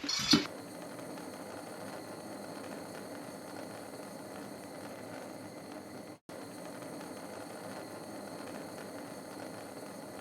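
A steady, even hiss that cuts out for a moment about six seconds in.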